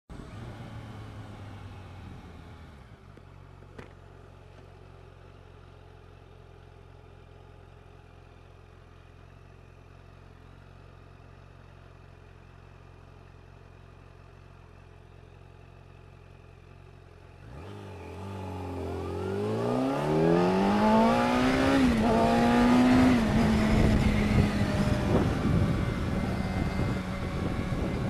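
Yamaha FZ1 motorcycle's inline-four engine running low and steady, then about two-thirds of the way through accelerating hard with a rising note, dipping briefly at a gear change and settling to a steady cruising pitch. Wind rush on the bike-mounted microphone rises with the speed.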